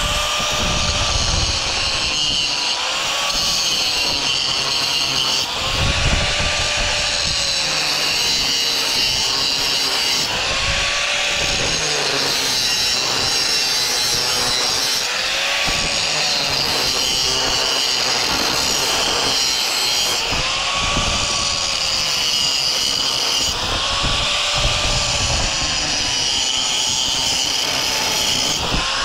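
A power cutting tool running through the welds of a row of laminated transformer cores one after another. The motor drones steadily, its pitch rising and falling over and over every two to three seconds.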